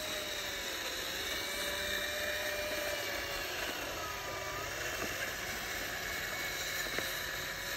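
Small electric drive motor and gears of a remote-control toy tractor whining steadily as it drives with a toy trailer hitched behind. The pitch wavers a little as it speeds up and slows, dipping slightly about halfway through.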